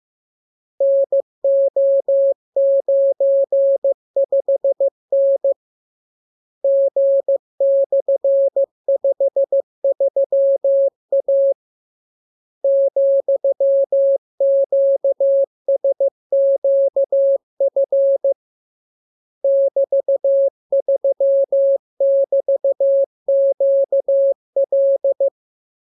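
Morse code practice signal: a single steady tone keyed on and off in quick dots and dashes, sent in runs of characters broken by three pauses of about a second. It is a training radiogram of the lesson's letters for copying code by ear.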